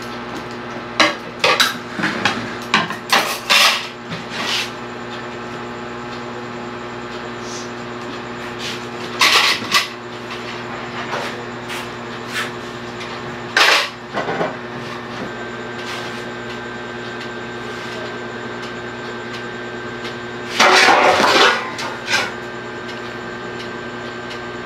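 Plates and dishes clinking and clattering as they are handled on a table, a string of separate knocks, with a louder, longer clatter near the end. A steady low hum runs underneath.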